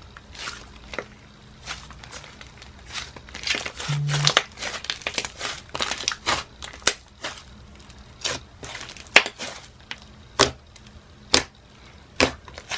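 Butter-and-jelly mixed slime with a vinyl texture being played with, making a run of crackly sizzles and sharp bubble pops, irregular and at times close together.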